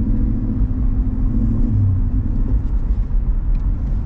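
Ford Mustang with a newly installed aftermarket exhaust, heard from inside the cabin while driving: a steady, low exhaust rumble.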